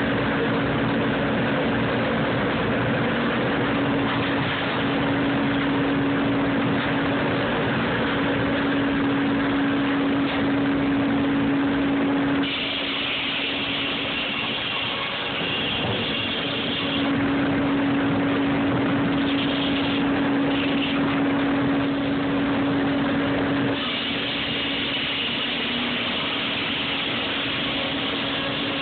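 Sawmill's large circular headsaw running with a steady hum while a log is fed past it on the carriage. About twelve seconds in, and again about 24 seconds in, the blade bites into the log and a higher, harsher cutting sound takes over.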